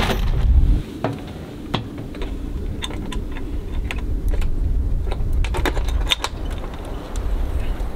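Wind rumbling on the microphone, with a run of light clicks and rattles as a rooftop tent's latches and straps are handled before it opens. The wind noise is louder in the first second.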